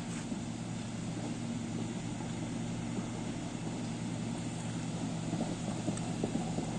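Cat 140GC motor grader's diesel engine running steadily, a constant low drone.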